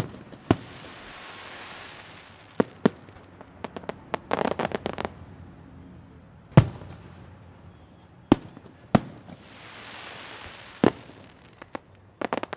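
Aerial fireworks going off: single sharp booms of shells bursting every second or two, with hissing, crackling swells and quick runs of small pops in between.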